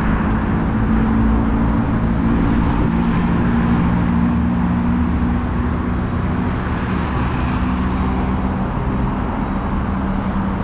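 Steady city road traffic: cars and buses running past on a multi-lane street, with a continuous low engine hum under the tyre and road noise.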